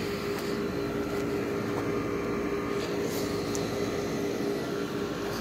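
Window air conditioner running, heard from outside: a steady compressor hum with the rush of its fan.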